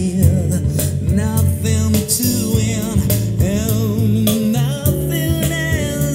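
A song with a singer holding wavering notes over a band with drums and a heavy bass line, played through a pair of loudspeakers driven by a 1991 Grundig V304 integrated stereo amplifier.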